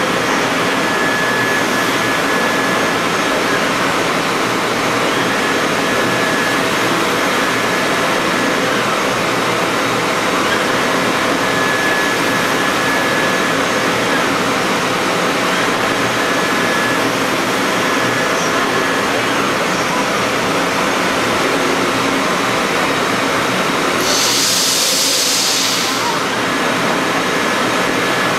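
C.R. Onsrud F98HM25 5-axis CNC mill running, its spindle driving a small router bit through a Ren foam block with a steady loud rushing noise. A thin high whine comes and goes every few seconds, and about 24 seconds in a brief burst of hiss rises over it.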